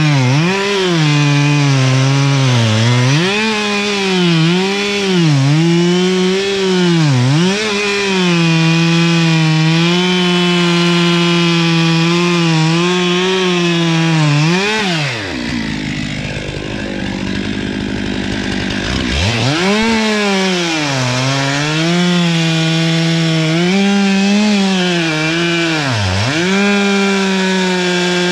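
Two-stroke chainsaw cutting into the base of an ash trunk, its engine running at high revs and repeatedly dipping in pitch as the chain bogs down in the wood. About halfway through, the engine drops low for a few seconds, then revs back up and keeps cutting.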